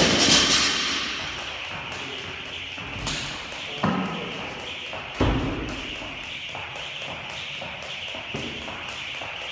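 Jump rope slapping a rubber gym floor in a quick, even rhythm, with a few heavy thuds about three, four and five seconds in.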